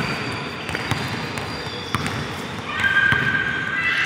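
Basketball being dribbled on an indoor hardwood court, with repeated bounces amid the game's background noise. A high, drawn-out squeal comes in near the end.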